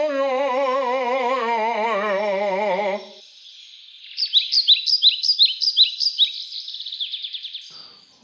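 A singing voice holds one long note with heavy, fast vibrato and stops about three seconds in. About a second later a songbird sings a run of quick, high chirps, several a second, growing fainter near the end.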